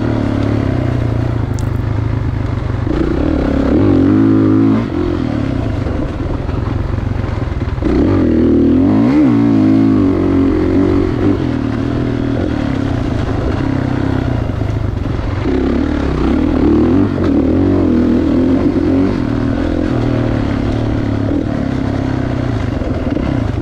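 2016 Kawasaki KX450's four-stroke single-cylinder engine running under riding load, its revs rising and falling as the throttle is worked, with a sharp drop and climb in revs around nine seconds in.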